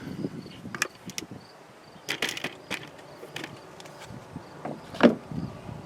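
Trunk of a 2000 Ford Focus being opened by hand: a series of short clicks and knocks from the lock, latch and lid, with the loudest knock about five seconds in.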